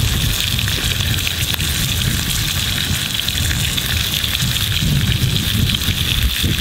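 Steak sizzling in bacon grease in a pan over a campfire, a steady hiss with fine crackles and a low rumble underneath.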